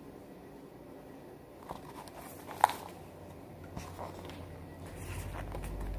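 Hardcover picture book being handled and a page turned: soft paper rustles and a few light taps, with one sharp click about two and a half seconds in and a low handling rumble near the end.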